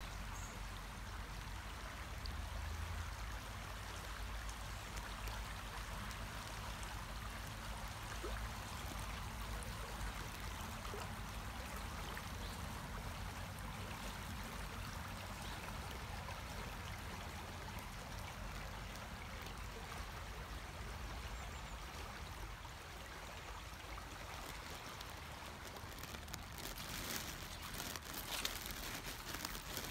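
A swollen, muddy stream flowing steadily. Near the end, footsteps crunch through dry fallen leaves.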